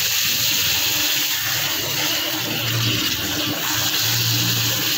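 Water from a garden hose spray nozzle jetting into a partly filled plastic bucket: a steady hiss and splash.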